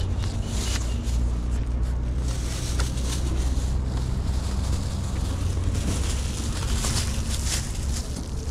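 Steady low hum of an engine running, with scattered light clicks over it.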